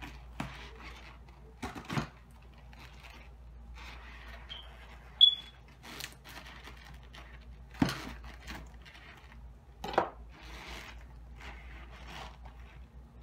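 Hands pulling apart the fibrous, sticky flesh of a cut jackfruit: irregular rustling, peeling and scraping, with a few sharp knocks and one short ringing clink about five seconds in, the loudest sound.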